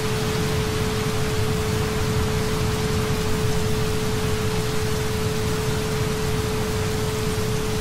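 Steady rain falling, with a constant pure tone near 432 Hz held underneath it.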